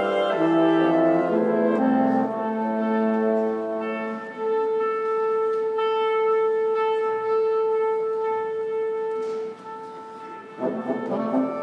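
Woodwind quintet of flute, oboe, clarinet, bassoon and French horn playing slow, sustained chords, with one long held note through the middle. The sound thins and drops away about ten seconds in, then the players come in again near the end.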